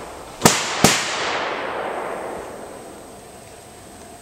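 Two sharp pyrotechnic bangs, about a third of a second apart, each followed by a hiss that fades away over about two seconds: airsoft grenades or thunderflashes going off, with white smoke spreading.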